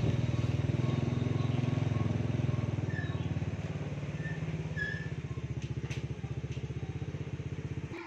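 Motorcycle engine running nearby with a rapid low putter, growing slowly fainter over the second half.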